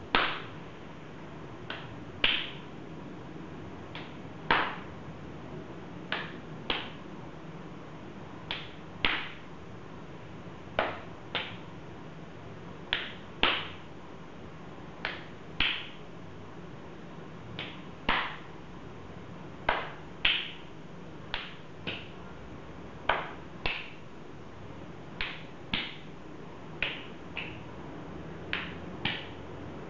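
Open-handed slaps on bare faces, two people slapping each other in turn. The slaps come in quick pairs about half a second apart, with a pair every two seconds or so, over a faint steady hum.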